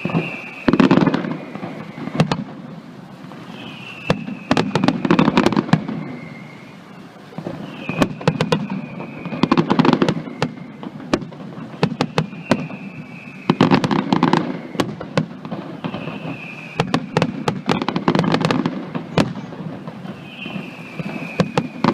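Fireworks display going off in repeated salvos about every four seconds, six in all. Each begins with a short falling whistle and breaks into a cluster of sharp bangs and crackles.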